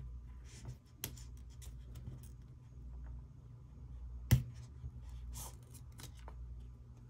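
Hands handling a phone's retail packaging: light rustles and small clicks and taps, with one sharp, louder click about four seconds in, over a steady low hum.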